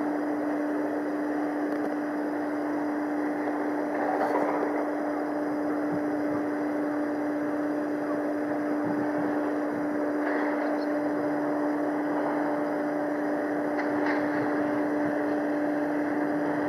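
A steady mechanical hum holding one constant low tone, with a rushing noise beneath it.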